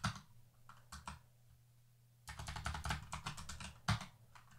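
Computer keyboard keys clicking: a few separate keystrokes, then a quick run of typing about two seconds in, ending with one sharper keystroke.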